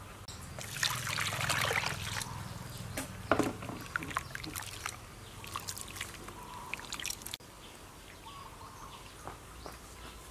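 Hands squeezing and kneading grated coconut in water in a plastic bowl to press out coconut milk: wet squelching and trickling of the liquid, with a short rush of liquid about a second in. The squelching stops abruptly about seven seconds in.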